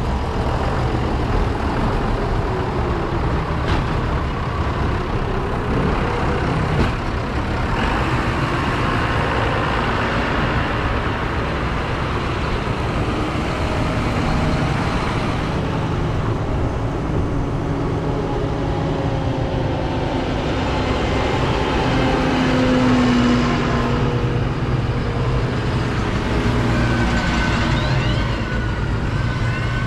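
Diesel farm tractors, mostly John Deeres, driving past close by one after another in a convoy, engines running steadily. The engine notes shift slightly as each tractor goes by.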